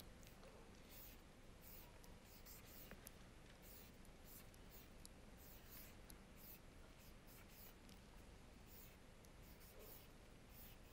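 Faint scratching of a white marker pen writing large letters on a dark blackboard-style board, in many short strokes.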